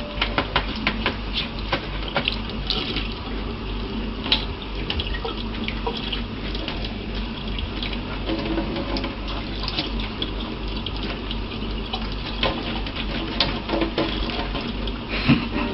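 Kitchen tap running into a sink, a steady splashing stream broken by many small splashes and knocks as a cat paws at the water.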